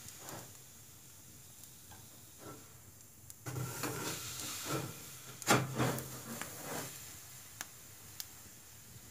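Wood fire burning in a stove, crackling with scattered sharp pops. A louder stretch of rustling noise runs through the middle, with its loudest knock about five and a half seconds in.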